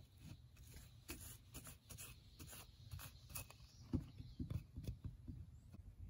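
Paintbrush dabbing and stroking white paint over hardened epoxy and a metal padlock hasp on a fridge door: faint, irregular scratchy brush strokes and light taps.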